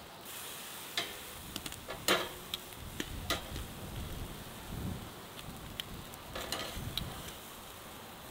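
Metal tongs clicking and tapping against a charcoal grill's steel grate as red bell peppers are set down beside eggplant slices, over a soft, steady sizzle of the vegetables cooking. The clicks come at irregular moments, the loudest about two seconds in, with a brief metallic ring.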